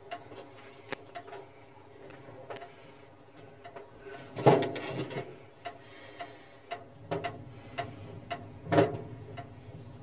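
Hand tools and small parts clicking and knocking as a fuel tank's sender unit is worked on and fitted, in irregular scattered taps. Two louder clatters stand out, about four and a half and nine seconds in.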